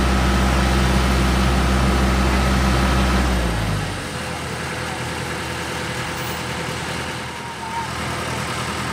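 Heavy truck's diesel engine running close by at a steady low pitch, then dropping away quickly a little under four seconds in, leaving a quieter, steady haze of background noise.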